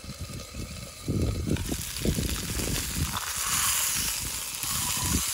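Chicken breast frying in a small pan, its sizzle swelling from about a second and a half in once the lid comes off, with low thumps just before.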